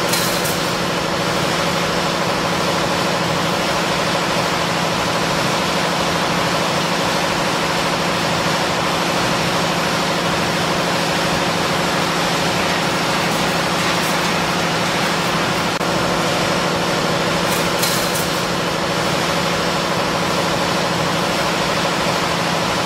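Straight line wire drawing machine running: a steady mechanical hum from its motors and belt-driven capstan blocks, with a few faint high ticks about 14 and 18 seconds in.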